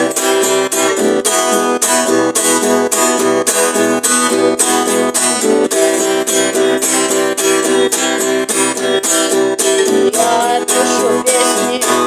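Instrumental guitar rock: strummed and picked guitars with bass over a steady drum-machine beat. A wavering lead melody comes in about ten seconds in.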